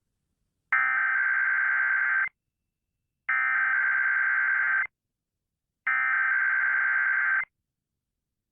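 Emergency Alert System digital data bursts: three identical, buzzy, warbling tone bursts of about a second and a half each, a second apart. Their length fits the SAME header that encodes an alert's details.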